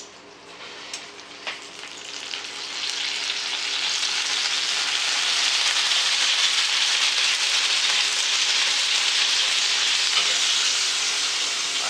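Hot fat sizzling on a baking tray in an open oven, swelling up over the first few seconds and then holding steady and loud, after a couple of light clicks near the start.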